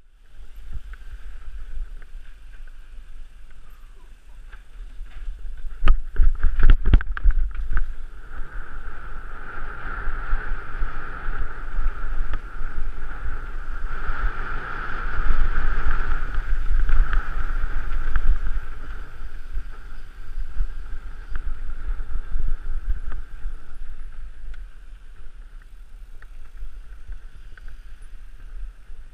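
Mountain bike descent heard from the rider's mounted camera: wind buffeting the microphone with tyres rolling on tarmac, and a steady high buzz that swells through the middle of the descent. A cluster of knocks and rattles comes about six to seven seconds in, as the bike goes over rough ground.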